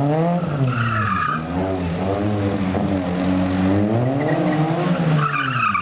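Small Fiat Seicento rally car engine revving up and down repeatedly as it is thrown around cones, with tyre squeal twice, about a second in and again near the end.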